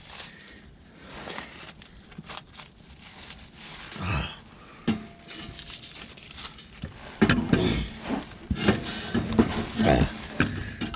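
Irregular scraping, rustling and metal knocks as a heavy truck starter motor is handled and worked up into its mounting opening on the frame. The clatter grows busier and louder over the second half.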